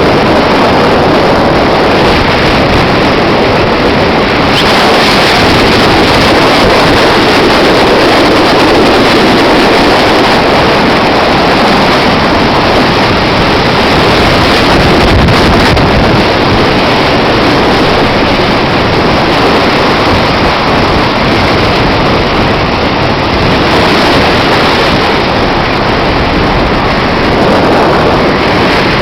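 Steady rush of wind and sea waves heard from aboard a ship at sea, with wind buffeting the microphone.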